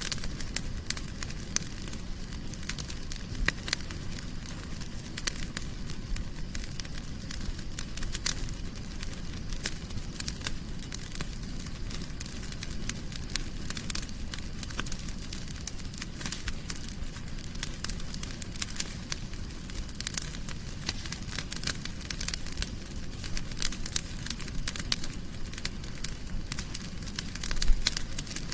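Wood fire crackling in a fireplace: a steady low rush of burning with constant sharp pops and snaps, and one louder pop near the end.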